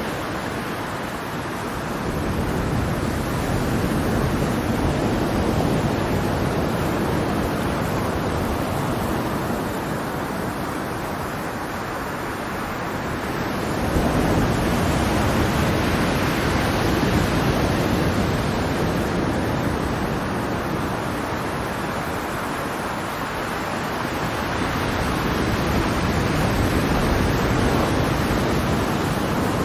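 Ocean surf washing ashore in a steady rush, swelling in slow surges about every ten seconds, with one wave breaking more sharply about halfway through.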